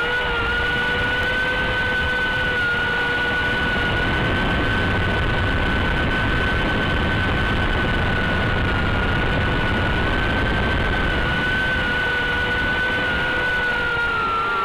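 Brushed-motor tiny whoop quadcopter in flight: its motors and propellers give a steady high whine that wavers slightly in pitch with throttle, over a hiss of rushing air, heard close up from the onboard camera.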